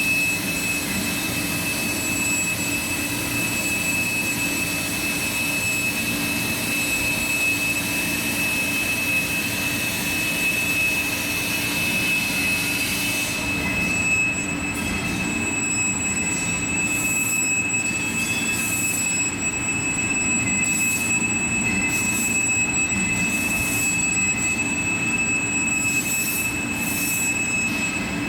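Machine tool running while cutting hardened AISI D2 tool steel, with a steady high whine over a constant low hum. About halfway through the broad hiss drops away and then comes back in short bursts.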